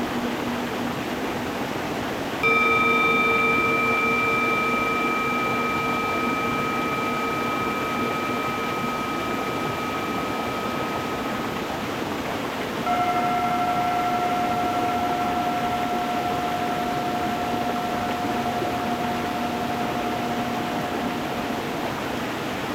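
Stream water running steadily over stones, with singing bowls struck twice, about two seconds in and again about halfway. Each strike rings on in a long, slowly fading tone.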